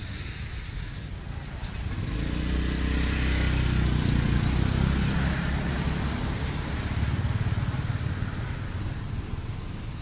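A motor vehicle's engine passing: a low rumble that swells about two seconds in and eases off near the end.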